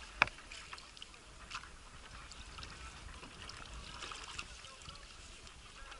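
Small water trickles and splashes of paddling around a stand-up paddleboard, with one sharp knock just after the start.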